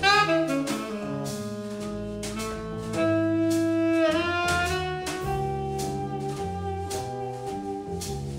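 Jazz trio playing: a tenor saxophone carries the melody in long held notes, sliding up into the first one, over upright double bass and a drum kit's cymbals.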